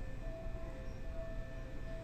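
Railway station platform ambience: a low, steady rumble with a faint high tone that comes and goes.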